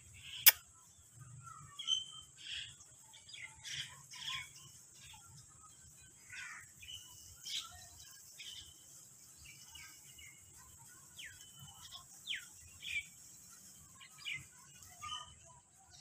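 Scattered faint bird chirps and short whistles, some sliding down in pitch, with a single sharp click about half a second in.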